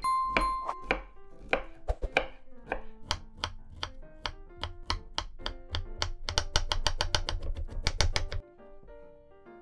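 Chef's knife chopping broccoli florets on a wooden cutting board: a series of sharp strokes that quicken into a fast run and stop about eight and a half seconds in.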